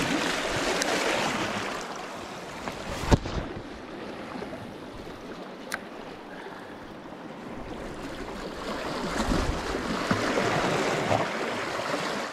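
Sea waves washing over the rocks, swelling and easing. A sharp knock about three seconds in and a lighter click near six seconds.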